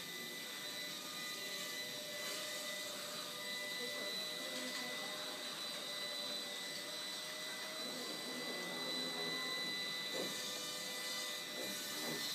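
Walkera Ladybird V2 micro quadcopter's small electric motors whirring steadily, with a thin steady high whine.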